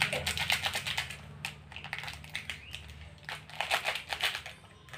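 Thin clear plastic packet crinkling and crackling as it is handled and picked open by hand, in two spells of rapid crackles, the first in about the opening second and the second a little past halfway.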